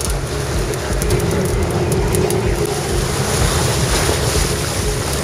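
Boat engine running steadily, with water churning and splashing against the hull and wind buffeting the microphone.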